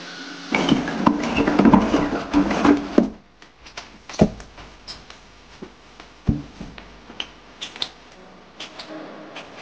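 Household cleaning noises: about two and a half seconds of clattering over a low hum, then a flat mop working over a tile floor with scattered light knocks and taps.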